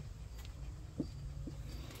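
Cat being groomed with a deshedding brush: soft strokes through the fur over a steady low rumble, with a short rising sound about a second in and another half a second later.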